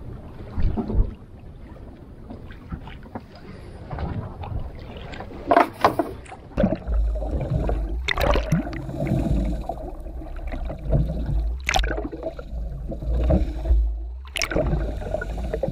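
Water sloshing against a small boat's hull. About six seconds in, this gives way to the muffled low rumble and sloshing of a camera held underwater, with a few sharp knocks, and it cuts off suddenly at the end.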